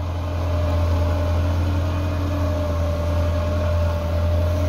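Massey Ferguson 375 tractor's 1995 Perkins four-cylinder diesel engine running at a steady pace under load, dragging an iron leveler through flooded mud.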